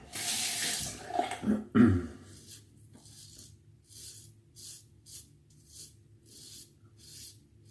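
Replaceable-blade straight razor scraping through lathered stubble in short, regular strokes, about one or two a second. A louder rush of noise with a few short voiced sounds comes in the first two seconds.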